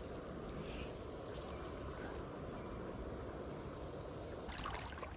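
Faint, steady outdoor background hiss, with a few light clicks near the end.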